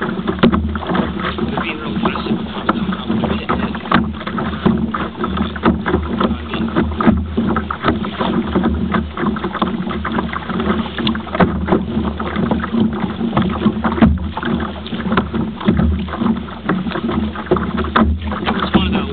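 Steady wind and water noise around a small kayak on open sea, with many small irregular slaps and knocks from water against the hull.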